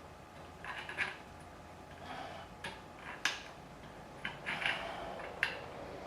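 Small handling sounds of a metal fork-tube cap being wiped clean: short rubbing scrapes broken by several light clicks of metal on metal.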